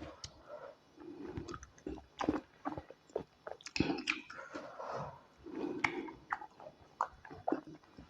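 Close-miked eating sounds: irregular wet chewing, smacking and clicking of the mouth, over a meal of tilapia pepper soup and white starch.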